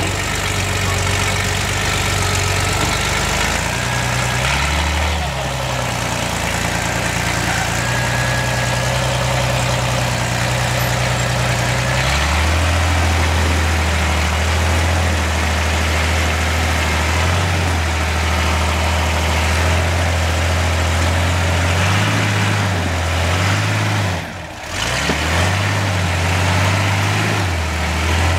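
Offroad trial buggy's engine running as the buggy crawls over boulders, its revs rising and falling over and over, with a brief drop in sound about three-quarters of the way through.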